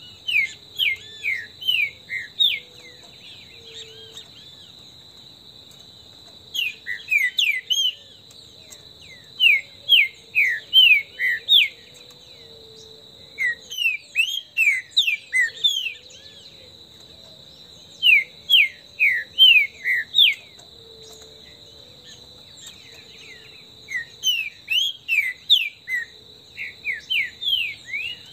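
Green-winged saltator singing: loud phrases of quick, sharp downward-slurred whistled notes, repeated every few seconds. A steady high-pitched insect drone runs underneath.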